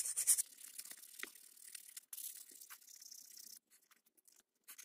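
Sandpaper rubbed in quick, even back-and-forth strokes on a wooden hammer handle, stopping about half a second in. After that come only faint scattered clicks and light taps from handling.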